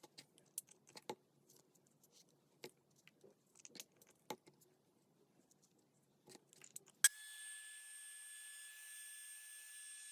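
Light clicks and rustling of paper and craft tools being handled, then a sharp click about seven seconds in as a small electric device switches on and runs with a steady high whine and hiss.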